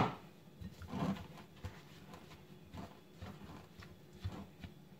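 A silicone spatula stirring and scraping thick, crumbly semolina dough in a glass mixing bowl, a soft scrape every second or so. A single sharp knock right at the start is the loudest sound.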